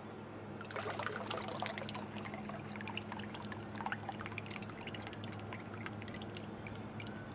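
Rubber-band-driven paddles of two 3D-printed PLA toy boats churning and slapping the water as they unwind. The rapid splashing starts about a second in, is busiest for the next few seconds, then thins out.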